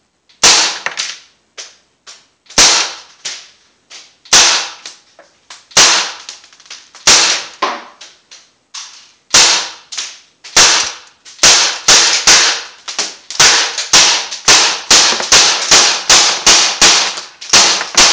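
Crosman AK1 CO2 BB rifle firing a string of shots, each a sharp crack with a short ringing tail, with BBs striking the plastic Xbox console and flying about. The shots start a second or two apart and quicken to about two a second from about halfway through.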